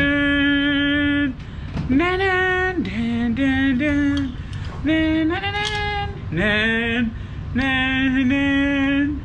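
A man singing a wordless tune in a series of long held notes, with a pitch glide upward about five seconds in.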